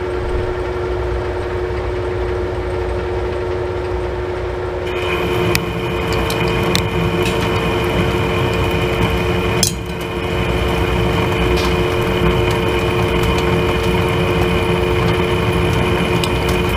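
Monarch engine lathe turning a 1018 steel sleeve dry, the tool taking a 50-thou-deep cut under power feed: a steady machine hum, with a higher whine and more low rumble joining about five seconds in and occasional sharp ticks.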